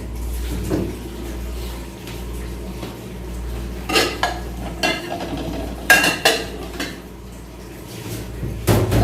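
Utensils clinking against dishes: a few sharp clinks about four seconds in, a quick cluster about six seconds in and another near the end, over a steady low hum.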